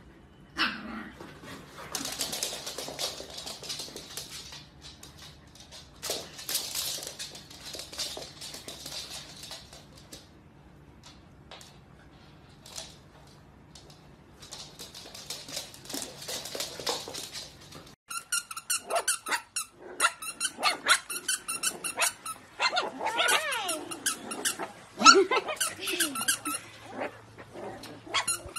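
Dogs playing, with short barks and bursts of noisy scuffling. Then a dog's squeaky toy squeaks rapidly and repeatedly while a litter of corgi puppies yips and whines.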